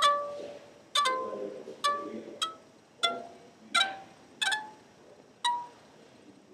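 Synthesized plucked, chime-like notes from a Pure Data patch running in MobMuPlat, set off by gestures with the phone. There are about eight single notes at changing pitches, each struck sharply and dying away, roughly one every three-quarters of a second at uneven intervals.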